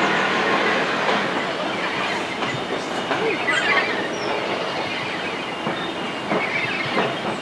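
LMS Jubilee Class three-cylinder 4-6-0 steam locomotive 45699 Galatea working past with its train, a steady mix of exhaust and wheels on the rails. It fades slowly as it draws away.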